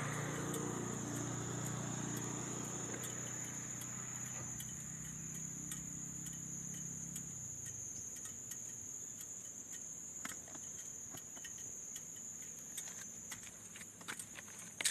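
Steady, high-pitched insect drone like crickets calling, with a low engine rumble that fades out about halfway through and a few light clicks near the end.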